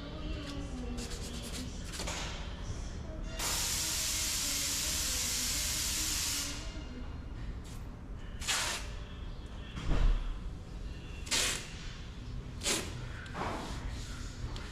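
A hiss of pressurised spray or air lasting about three seconds, starting and stopping sharply, followed by a few short knocks.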